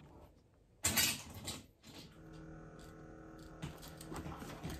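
Rustling and light clicks of small objects being handled, a short cluster about a second in, then a faint steady hum with a few small clicks.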